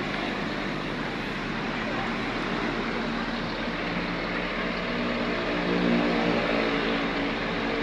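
Bus diesel engine idling steadily, heard from the open passenger doorway, with its drone swelling a little about five to six seconds in.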